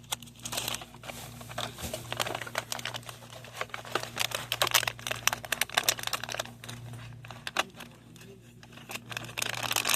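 Crinkling and rustling with many quick, irregular clicks and crackles, over a steady low hum.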